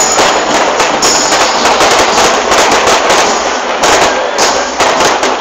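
Fireworks going off in a dense, rapid crackle: many small pops and bangs overlapping without a break, loud throughout.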